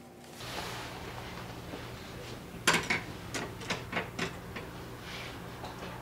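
A run of light, irregular taps and clicks starting a little over halfway through, several in a second, over a steady low hum and faint hiss.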